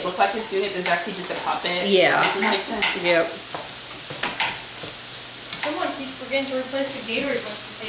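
Ground beef sizzling as it browns in a nonstick skillet, stirred and broken up with a utensil that scrapes and ticks against the pan.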